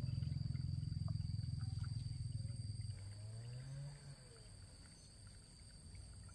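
Water buffalo giving a long, low, rough bellow that fades after about three seconds, followed by a shorter, quieter call that rises in pitch.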